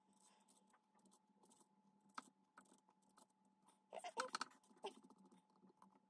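Faint clicks and light metallic clinks of steel washers and a nut being handled and threaded by hand onto the end of a lead screw, with a short flurry of clinks about four seconds in.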